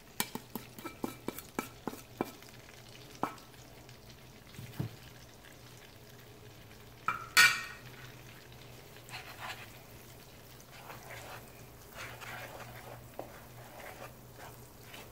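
About ten quick sharp taps in the first two seconds as seasoning is knocked off a plate into a pan of melted garlic butter. A few single knocks and a loud clack follow about seven seconds in, then a wooden spatula stirs and scrapes through the butter sauce in the pan.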